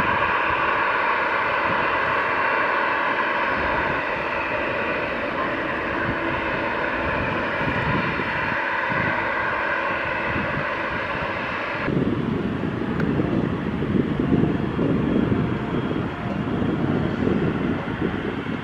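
Jet airliner engines whining with several steady high tones over a rushing noise. About twelve seconds in, the sound changes abruptly to a loud, uneven low rumble.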